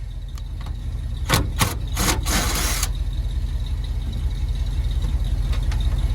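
Bolt being taken off a car's cover with a tool: a few sharp clicks, then a short harsh burst about two seconds in, over a steady low rumble.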